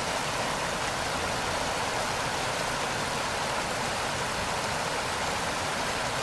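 Steady rushing of a swollen, fast-flowing river in flood.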